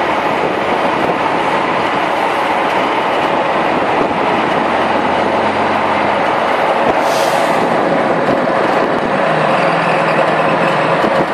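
Manitou MLT 1035 telehandler's diesel engine running under load as it drives and lifts its loaded bucket, in a steady mechanical din. A short hiss about seven seconds in.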